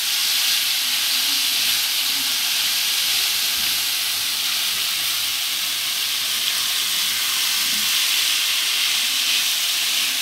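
Finely diced potatoes sizzling steadily in hot oil in a pan as they are stirred with a spatula, being fried until soft.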